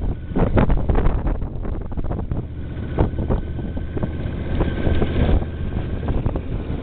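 Yamaha Venture touring motorcycle's engine running steadily as the bike rides along a dirt track, with wind buffeting the microphone and scattered knocks and rattles as it goes over the rough ground.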